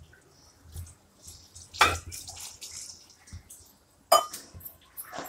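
Thin liquid poured from a steel bowl into a pot of chicken curry, splashing in, with a sharp metallic clink about two seconds in and another about four seconds in.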